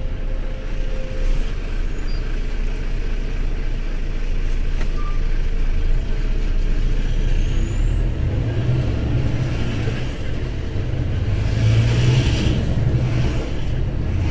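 Lorry on the move, a steady low diesel engine and road rumble that grows louder about eight seconds in.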